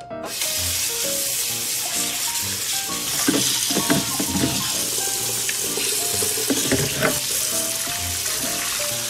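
Kitchen faucet running a steady stream into a stainless steel sink, hissing and splashing as hands rinse a silver carp head in a plastic colander. The water starts suddenly at the very beginning, with a few sharper splashes from the handling about three to four seconds in and again around seven seconds.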